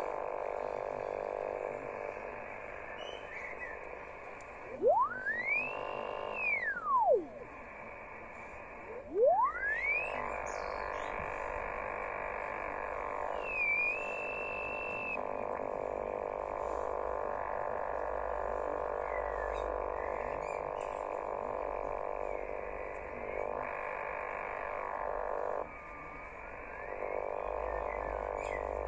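Interference noise (QRM) from a Yaesu portable transceiver's speaker in upper-sideband mode on the 6 m band, strong enough to hold the S-meter at S8. As the dial is turned, a whistle glides up and back down about 5 to 7 seconds in, another rises about 9 seconds in, and a short steady whistle sounds about 14 seconds in.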